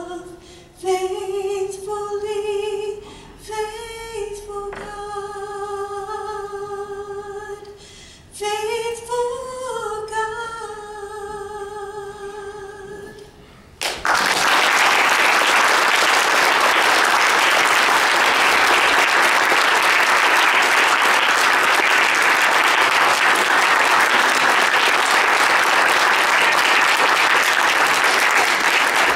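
Unaccompanied female voice singing the last long, held notes of a worship song, ending about halfway through. The audience then breaks into loud, steady applause that runs on.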